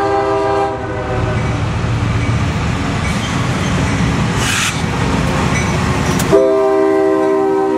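CSX diesel freight locomotive approaching and passing: its horn chord sounds and cuts off just under a second in, then the rumble of the oncoming train fills the gap. About six seconds in the horn blows again, loud, as the lead locomotive goes by.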